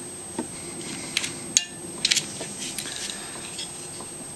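Light clicks and small knocks of a Glock's stock trigger assembly being wiggled loose and worked up out of its polymer frame, a few scattered taps with faint handling noise between.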